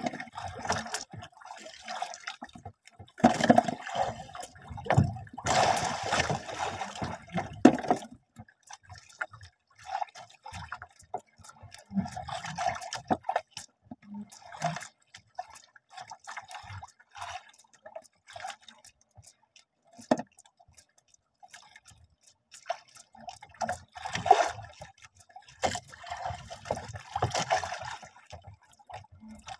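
Sea water lapping and splashing against the side of a small boat, coming in irregular bursts with quieter stretches between.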